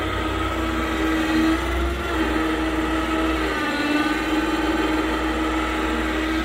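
A motor running steadily: a hum that wavers slightly in pitch over a low rumble.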